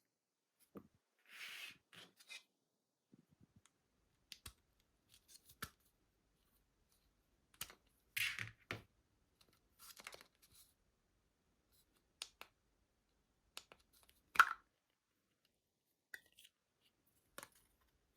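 Hands handling a small plastic fan and its packaging: scattered clicks, short scrapes and rustles, with one sharper snap about fourteen and a half seconds in.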